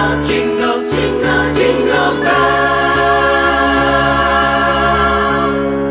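Vocal group singing a Christmas choral arrangement: short rhythmic chords, then from about two seconds in one long held chord, the song's final chord.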